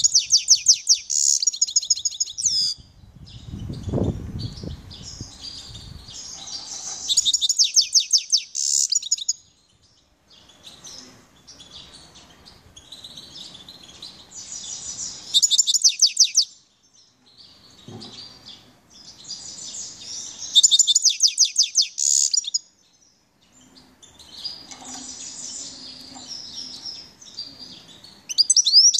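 Grey-headed goldfinch singing: about five twittering phrases, each a few seconds long with fast buzzy trills, separated by short pauses.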